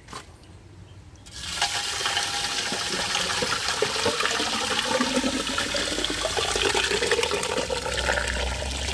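Liquid concrete gushing from a bucket into a baluster mold, a steady heavy pour that starts about a second and a half in.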